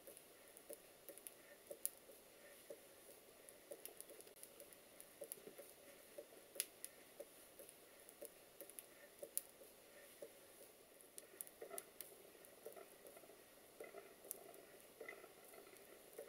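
Model steam mill engine running fast, faint: a soft rhythmic beat with scattered light clicks and taps. Much of its oil has been flung off, so it is making more mechanical noise and needs re-oiling, and slight play in the crosshead small end makes an occasional tapping.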